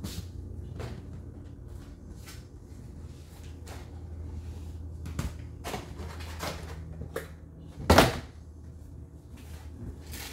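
Scattered light knocks and clicks, with one loud thump about eight seconds in, over a low steady hum.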